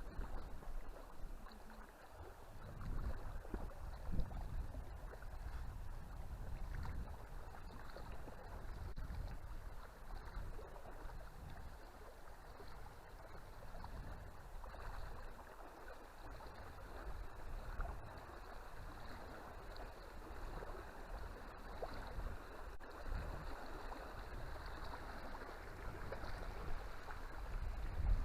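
A large river flowing steadily, with wind gusting against the microphone.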